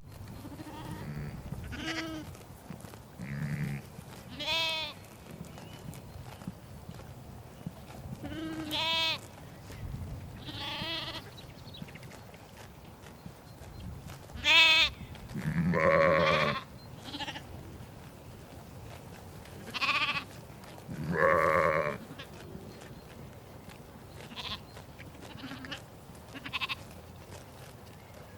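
A flock of sheep bleating: about a dozen separate calls, some high and quavering, others deeper and louder, overlapping in places.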